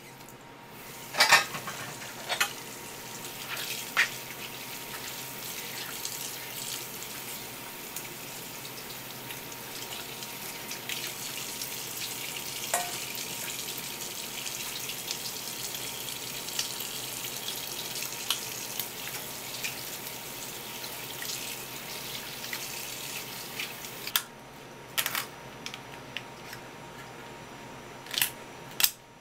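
Kitchen tap running steadily, the water splashing over a halved crab and the plastic cutting board as it is rinsed, with a few sharp clicks of shell being handled in the first seconds. The water shuts off about 24 s in, followed by a few sharp snips of kitchen shears cutting crab shell near the end.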